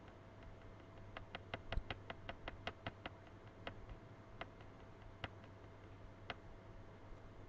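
Faint clicks of a computer mouse scroll wheel as a document is scrolled: a quick run of about a dozen clicks, then a few single clicks about a second apart.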